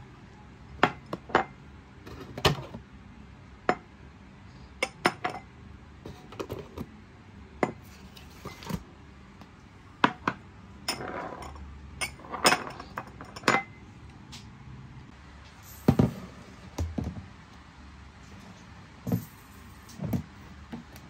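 Irregular clinks and knocks of hard objects being handled, about two dozen sharp strikes spread out, with brief scraping or rustling around the middle.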